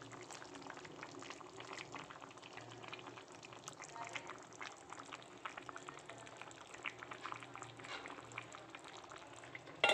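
Chicken curry with potatoes bubbling in an open pan on the stove: a faint, steady simmer with many small irregular pops of bursting bubbles.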